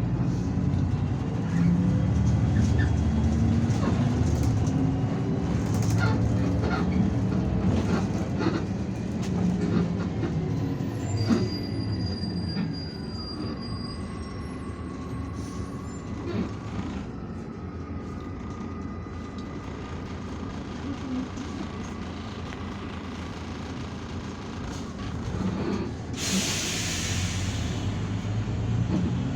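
Irisbus Citelis 12M city bus heard from inside the cabin: the engine pulls with rising and falling pitch, then runs more quietly under a long, steady high-pitched whine. Near the end comes a short, loud hiss of air.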